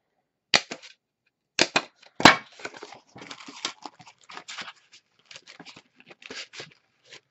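Brown kraft paper lunch bags being handled and folded: a few sharp clicks and snaps in the first couple of seconds, then dry paper rustling and crinkling.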